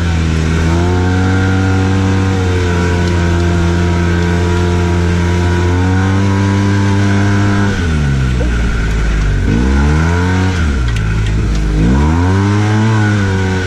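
Arctic Cat Wildcat Trail 700 side-by-side's single-cylinder engine heard from the cab. It holds a steady high speed for about six seconds, then drops and climbs in pitch twice as the throttle is let off and opened up again.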